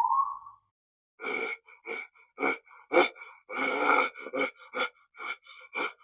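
Farm animal calls: a rising drawn-out call ends in the first half second, then from about a second in comes a run of short, sharp calls, about two a second and uneven in spacing.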